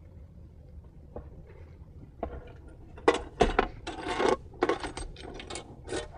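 Steel handgun lock box being shut and locked with its key: a string of sharp metal clicks and rattles, with keys jangling, that starts about two seconds in and is densest over the last three seconds.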